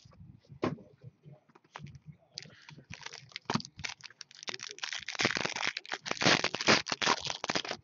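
Foil trading-card pack being torn open and crinkled by hand: scattered crackles and rips at first, then a dense run of crinkling in the last three seconds.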